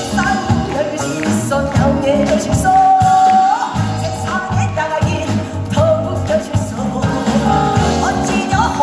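A woman singing a sliding, held pansori-style vocal line into a microphone, with a Korean traditional orchestra that includes gayageum and haegeum accompanying her to a steady beat.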